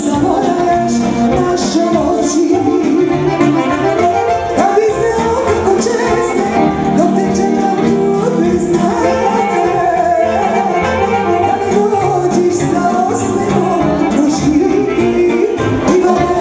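Live band music: a woman sings into a microphone over accordions, saxophone and keyboards, with a steady beat.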